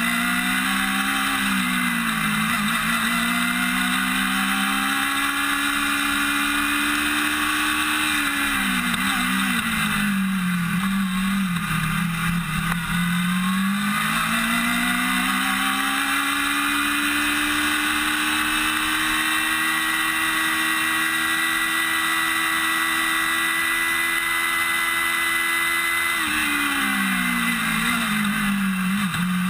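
Formula SAE race car engine running hard, heard from the car's roll bar. The engine note rises and falls with the throttle: a short climb and dip at first, a fall around the middle, then a long steady climb that drops away near the end.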